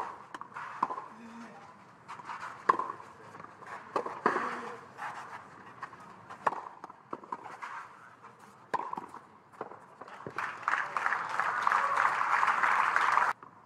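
A tennis rally on a clay court: sharp pops of the ball off the racquets every second or two, back and forth. Then a burst of crowd applause and cheering about ten seconds in, which cuts off abruptly near the end.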